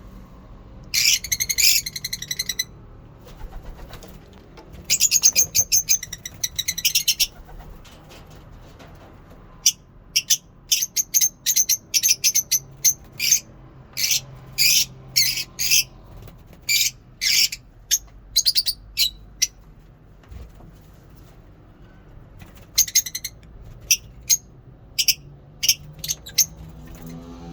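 Lovebirds chattering: shrill, high-pitched rapid chirping in bursts of a second or two, then long runs of short, sharp calls in quick succession.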